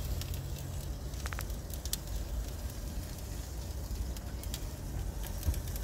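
Scattered crackles and clicks over a steady low rumble, with a brief high tone about a second and a half in.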